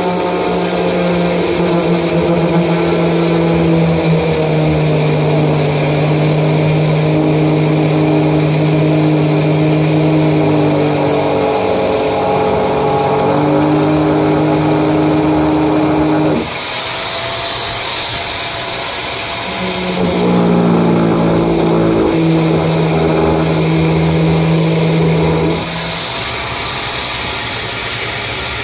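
Handheld corded power drill running a hole saw into the wall of a fibreglass tank: a steady motor hum that shifts a little in pitch as the bit bites. The motor cuts out for a few seconds about sixteen seconds in, starts again, and cuts out once more near the end, leaving a quieter hiss.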